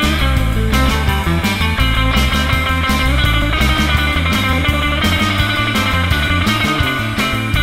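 Rock background music with guitar, bass and a steady drum beat.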